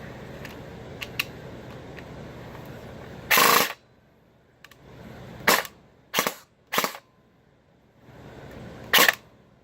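Krytac airsoft electric gun (AEG) firing, powered by an 11.1 V LiPo through a small T-plug-to-Deans battery adapter. There are five separate firings: the first and longest comes a little over three seconds in, then four short ones follow, spread across the rest.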